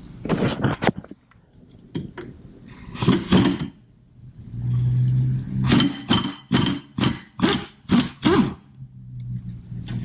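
Wrench work on a 14 mm suspension bolt of a camber arm: scattered metal knocks, a brief steady motor-like hum past the middle, then a run of about eight quick strokes, roughly three a second.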